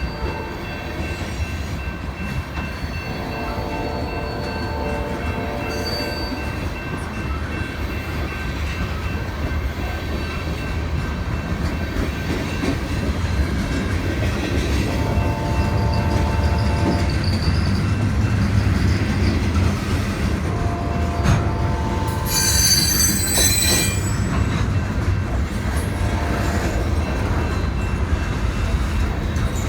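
Freight cars of a BNSF manifest train rolling past with a steady low rumble, the wheels squealing in several drawn-out tones and one sharp high screech late on.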